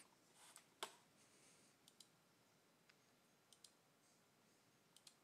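Faint computer mouse clicks, a few scattered clicks with several in quick pairs, over near silence.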